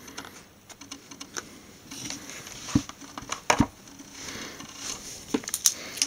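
Handling noise: scattered light clicks and knocks of a multimeter, its test leads and a Speakon speaker cable being moved and set down on a table, with two sharper knocks around the middle.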